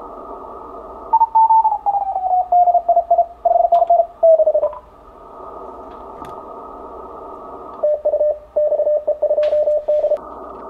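Fast Morse code (CW) from an Icom IC-7300 transceiver over a steady hiss of band noise. The keyed tone falls in pitch as the tuning knob is turned onto the station. From about eight seconds in it holds one steady pitch, keyed in quick dits and dahs.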